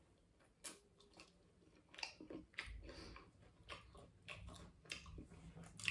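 Faint chewing of a mouthful of chole bhature: soft, irregular mouth clicks and smacks that start about two seconds in after a near-silent opening.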